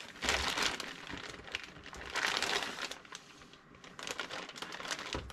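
Clear plastic bag crinkling and rustling as hands pull it open and slide an instrument cluster out. It is loudest near the start and again around two seconds in, then thins to lighter crackles.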